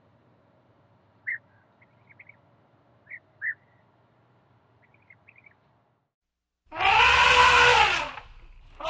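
Animal calls: a few faint, short chirps, then after a brief silence a loud drawn-out call that rises and falls in pitch, with a second like it starting near the end.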